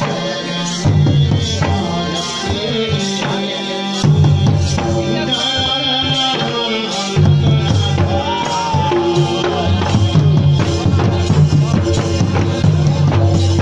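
Jhumar folk music: hand drums beat a steady rhythm under a melody line, with a heavy low bass part that drops out for a few seconds in the middle.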